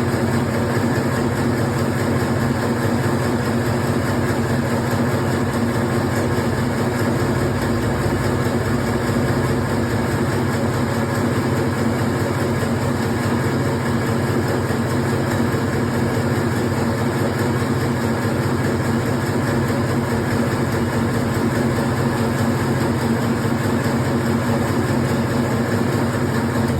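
Meatball-forming machine running steadily, its motor giving a constant hum with no change in speed.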